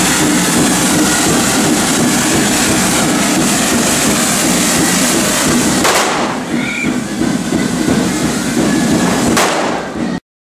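Hand-held correfoc fireworks spraying sparks, a continuous loud hiss and crackle. The sound changes abruptly about six seconds in and cuts off to silence just before the end.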